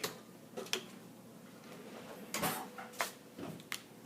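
A few light clicks and knocks from kitchen utensils being handled, the loudest about two and a half seconds in.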